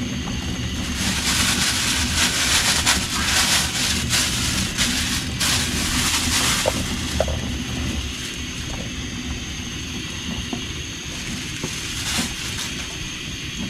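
Crinkling and crunching from handling a package of frozen, iced-up bean sprouts for a few seconds, over a steady low hum; it then drops to a quieter hum with a few small clicks.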